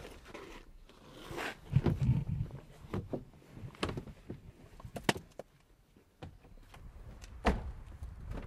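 Knocks, thumps and clothing rustling as a limp body is pushed onto a car's back seat, with the loudest thumps about two seconds in and a few sharp clicks later on.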